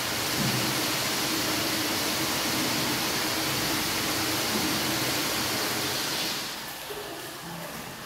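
Steady rushing noise that drops away about six seconds in, leaving a quieter hiss.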